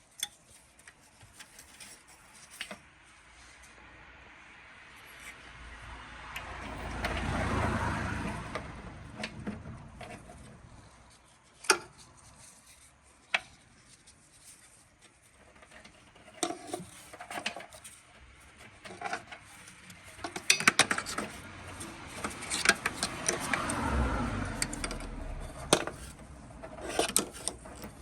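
Metal hand tools and parts clinking, knocking and scraping in irregular sharp hits. Two slower swells of rushing noise build and fade about a quarter of the way in and again near the end.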